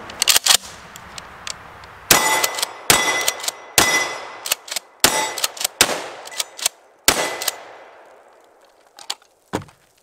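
Remington 870 DM 12-gauge pump-action shotgun fired in a quick string of about six shots, roughly a second apart, each with a ringing tail. Between the shots come the sharp clacks of the pump being worked, and a few clicks of the action come before the first shot.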